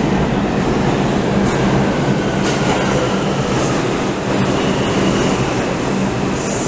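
Subway train pulling into the station along the platform: a loud, steady rumble of steel wheels on rail, with a faint falling squeal and a few short hisses.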